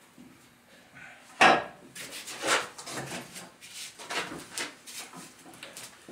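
Knocking and clattering of wooden 4x4 cart parts and bolt hardware being handled during assembly: one sharp knock about a second and a half in, then a run of lighter clicks and rattles.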